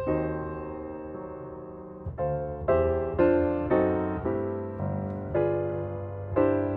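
Background piano music: a held chord dying away, then gentle notes played about twice a second.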